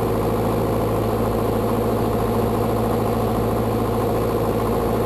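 Beechcraft Sundowner's four-cylinder Lycoming engine and propeller droning steadily on final approach, heard from inside the cockpit.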